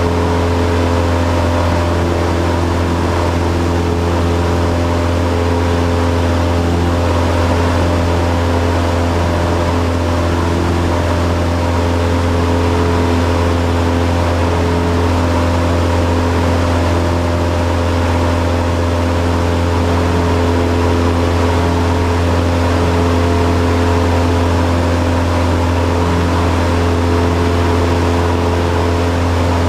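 Cessna 172's piston engine and propeller droning steadily at constant power, heard inside the cockpit.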